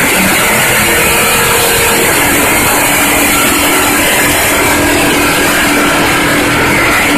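Carbureted race V8 on an engine dynamometer, revving up from idle right at the start and then running loud and steady at high revs.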